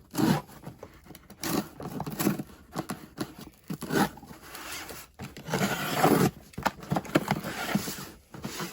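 Shipping package being torn open by hand: a run of irregular ripping and scraping bursts.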